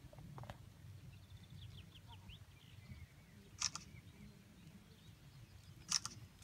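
Faint open-air background with a bird singing: a quick run of falling high notes about two seconds in, over a low steady rumble. Two short, sharp high-pitched sounds, the loudest things heard, come near the middle and just before the end.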